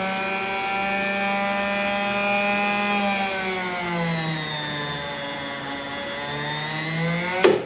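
Citadel circuit breaker's spring-charging motor running to charge the closing springs: a steady motor whine whose pitch sags slightly midway, then a sharp clunk near the end as the charge completes and the motor stops.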